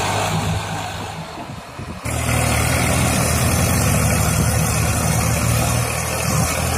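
Swaraj 744 FE tractor's diesel engine running steadily. It fades a little about a second in, then comes back suddenly louder about two seconds in and holds steady.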